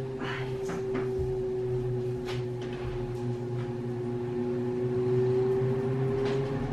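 A steady hum with one held tone, its source not shown, runs throughout. Over it come a few faint swishes of a wet string mop pushed across a tiled floor.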